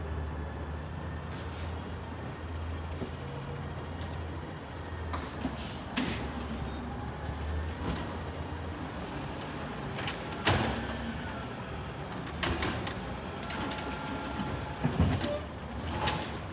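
Distant city garbage truck's diesel engine running steadily, with several sharp clanks and bangs spaced a few seconds apart as it works its way along the street.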